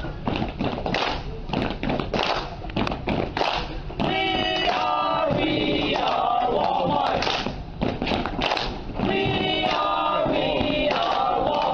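A group of store employees clapping quickly in rhythm, then from about four seconds in chanting and shouting together in unison in a staff cheer.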